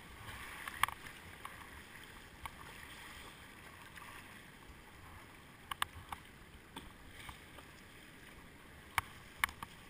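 River water rushing steadily around a kayak running a riffle, with a few sharp clicks or knocks: one about a second in, a quick cluster near the middle and two more near the end.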